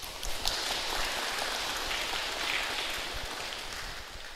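Audience applauding, an even clatter of many hands that starts suddenly, holds for about four seconds and tails off near the end.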